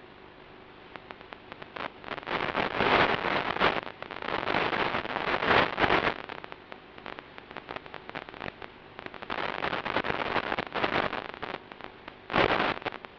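Wind rushing over the onboard camera's microphone on an FPV model plane in flight, a rough crackling noise that surges in several loud gusts and drops back between them.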